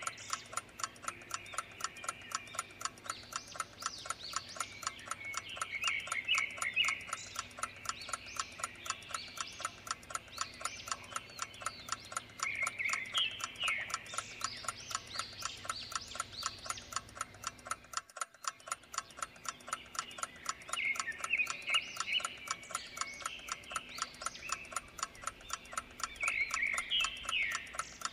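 A clock ticking quickly and evenly, with birds chirping over it in a short phrase that comes back about every seven seconds.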